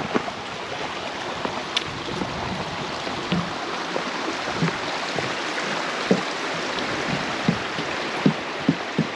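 Footsteps crunching and knocking on a rocky trail, coming faster and more regularly about two-thirds of the way in. They sit over a steady rushing hiss like running water.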